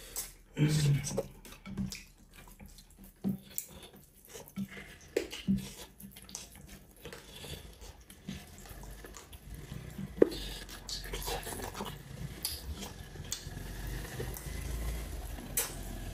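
Close-up eating sounds from a meal of curry and rice: wet chewing, lip smacks and squelching in short irregular clicks, with one sharper click about ten seconds in.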